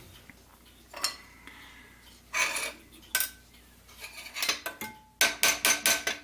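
Small metal parts clinking and tapping against a steel drill press table: the homemade centering jig is pulled off the drill bit and set down, and the brass hinge is shifted about. The clinks come in ones and twos, then a quick run of about five near the end.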